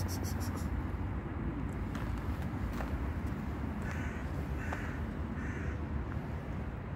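A crow cawing three times in quick succession, over a steady low rumble.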